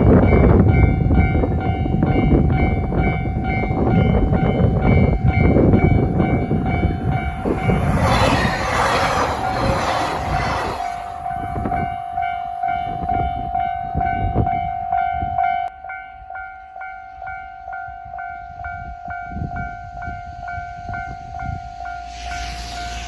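Japanese railway level-crossing alarm ringing in an even, repeating pattern while a passing train rumbles over the crossing. The train noise falls away sharply about two-thirds of the way through, leaving the crossing bell ringing on.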